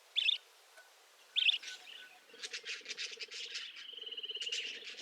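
Budgerigars chirping: two short sharp chirps, then from about two seconds in a fast run of chattering notes, with a buzzy trill about four seconds in.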